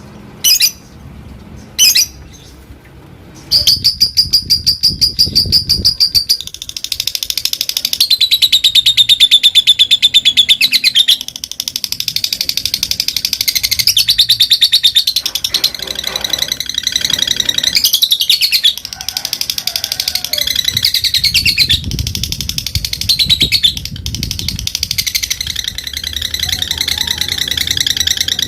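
Lovebird giving a long, very fast chattering trill, the 'ngekek' of a fighter lovebird, after two short sharp calls in the first couple of seconds. The trill starts about three and a half seconds in and keeps going without a break.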